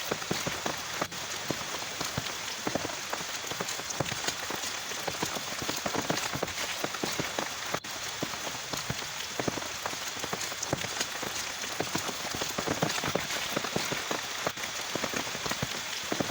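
Heavy rain falling steadily, a dense patter of many individual drops hitting a surface.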